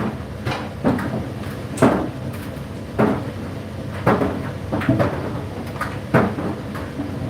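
Indesit IDC8T3 condenser tumble dryer running, its drum turning while the load drops and knocks against it about once a second over a steady hum.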